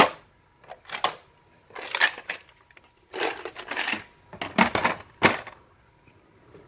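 Small metal tools, drill bits and sockets, clinking and rattling against each other in a tool box drawer tray as they are handled: single sharp clinks about a second apart, then quicker clusters of clatter, stopping near the end.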